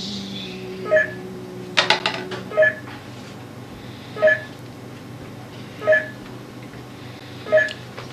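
A short electronic beep with two tones, repeating evenly about every second and a half (five times), with a quick cluster of sharp clicks about two seconds in.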